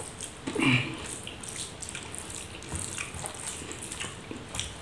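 Wet eating sounds of a man eating curd rice by hand: moist chewing and smacking clicks, with a short vocal murmur about a second in.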